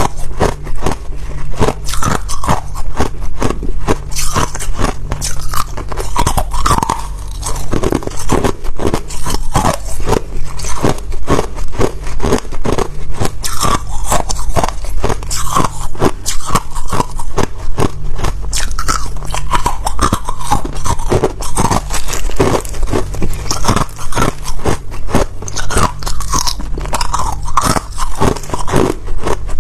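Ice being bitten and chewed: a dense, irregular run of crunches and cracks throughout.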